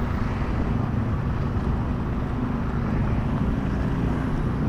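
A vehicle travelling on a road: a steady engine and road rumble that holds even throughout.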